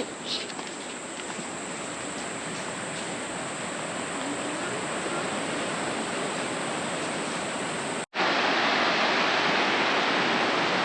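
Steady rush of surf breaking on a beach. About eight seconds in, after a brief dropout, it becomes louder.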